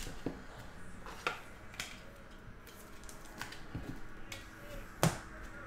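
Trading cards and rigid plastic top loaders being handled on a table: a scatter of light clicks and taps, with one sharper tap about five seconds in.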